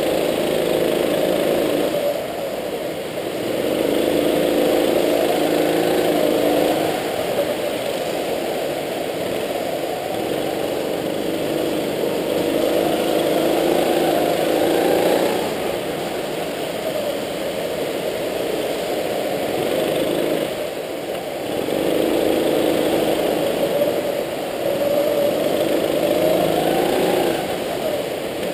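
A go-kart's small engine, heard from on board, revving up with rising pitch and then dropping back, over and over, as the kart accelerates and slows around the track.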